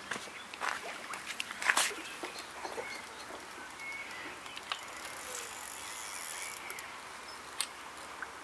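An angler wading and playing a hooked tench on rod and reel: scattered clicks and water sounds, with one louder knock about two seconds in. Short bird chirps come through now and then.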